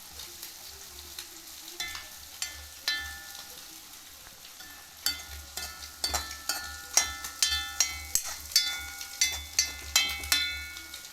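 Green beans stir-frying in a metal pan with a light sizzle, while a metal spoon scrapes and knocks against the pan. The knocks ring like metal and come about twice a second, louder, from about five seconds in.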